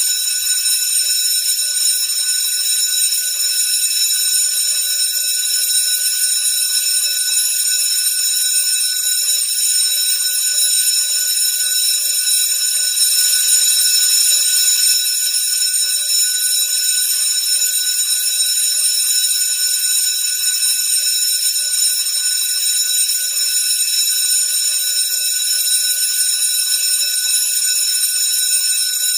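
School bell ringing continuously, a steady, unbroken high-pitched ring.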